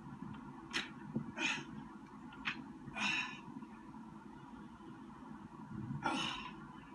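A man's short, forceful breaths while he lifts and squats with a pair of dumbbells, about four sharp exhalations spread over the few seconds, played back through a laptop speaker over a low background hum.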